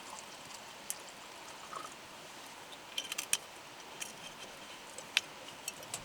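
Steady babbling of a shallow stream, with scattered sharp crackles and pops from a wood campfire, a quick cluster of them about three seconds in and another loud pop about five seconds in.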